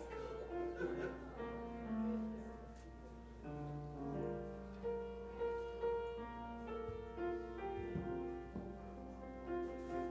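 Slow instrumental keyboard music, its chords and melody notes held for a second or more.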